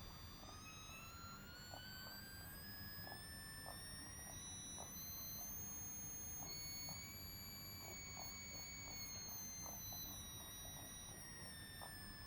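Stepper motor, driven by a microstepping driver, giving a faint high-pitched whine whose pitch slowly rises and then falls back, with faint irregular ticking underneath.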